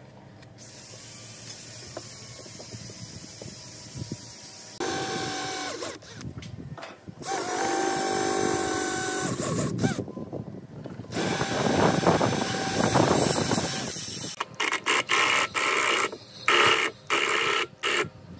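Cordless drill driving screws into a wooden tabletop. It makes several runs of a few seconds each with a steady motor whine, then a string of short bursts near the end.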